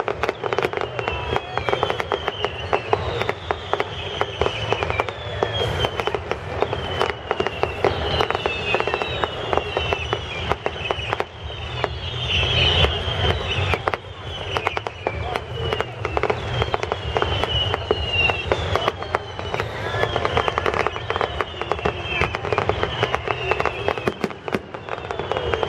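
Fireworks display: a dense, continuous run of crackling and popping bangs, with many high whistles that fall in pitch, one after another.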